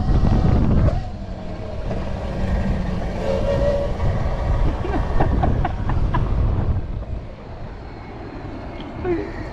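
Wind rumbling on the microphone and road noise while riding an electric dirt bike, loudest in the first second, with a brief electric motor whine about three and a half seconds in.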